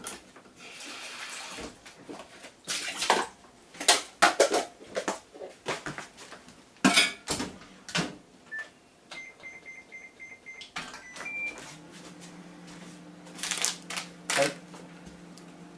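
Clatter and knocks of a bowl and door being handled, then a short run of evenly spaced electronic beeps as a microwave oven is set, after which the microwave starts and runs with a steady low hum, heating the vegetables. A plastic bag rustles near the end.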